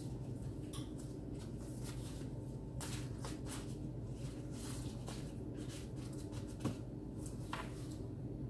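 Soft rustling and crinkling of thin pastry dough sheets being handled and laid into a metal baking tray, in many short irregular strokes over a steady low hum.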